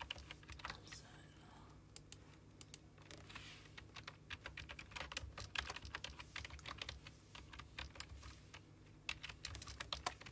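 Typing on a computer keyboard: runs of quick keystrokes, densest in the middle and again near the end.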